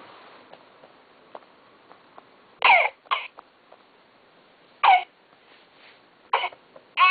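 Infant simulator doll playing a recorded baby's cough: four short coughs a second or two apart, the first two close together. A cry starts at the very end.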